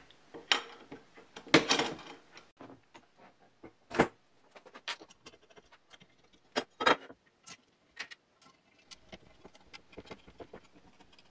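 Aluminium extrusions and small metal fittings handled and set against each other on a workbench during assembly: irregular light clicks and taps, with a few louder knocks.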